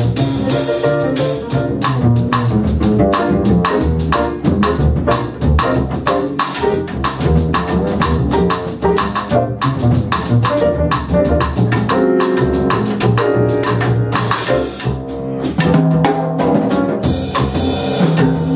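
Jazz piano trio playing: grand piano, plucked upright double bass, and drum kit with drums and cymbals, in a steady, busy groove.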